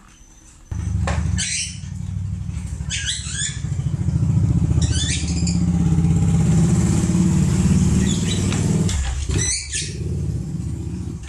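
An engine running close by, starting abruptly about a second in, steady and low, then dying away near the end. Several short high chirps sound over it.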